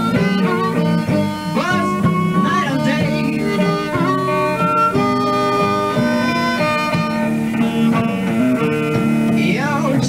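Blues band playing live, harmonica over guitar, heard through an old cassette tape recording of poor sound quality.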